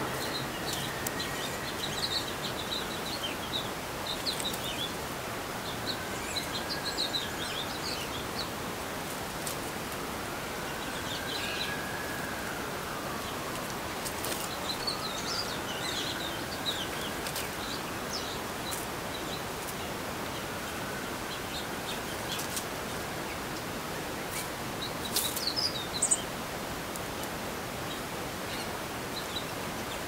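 Small songbirds chirping in short, high clusters over a steady outdoor hiss, with a few sharp clicks near the end.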